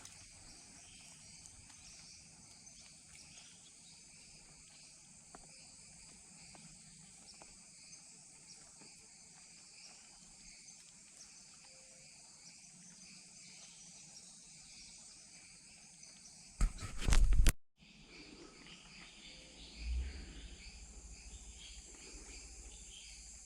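Steady chorus of insects, a high continuous buzzing and trilling. About two-thirds of the way in, a loud sudden noise lasts about a second and cuts off abruptly, and a smaller low thump follows a few seconds later.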